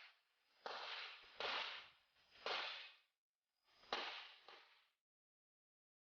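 Smith & Wesson SW1911 Pro Series 9mm pistol firing a string of about five shots at uneven intervals, each a sharp crack that dies away quickly, as the shooter works through targets in a practical-shooting stage.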